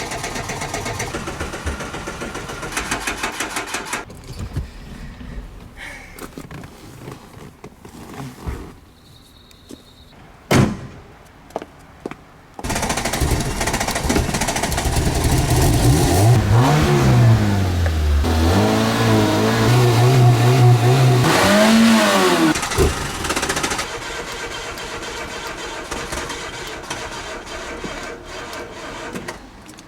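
Peugeot 106 engine being cranked on the starter while the accelerator pedal is pumped, a sign of a hard start or flooded engine. It pauses with a sharp knock, then catches about twelve seconds in and runs unevenly, its revs rising and falling with the pumped pedal, before settling to a steadier, quieter run near the end.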